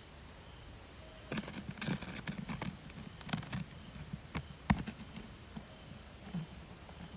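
An irregular run of crackles, snaps and soft thuds, like something moving through dry leaves and twigs, lasting about four seconds, with one sharp knock near the end.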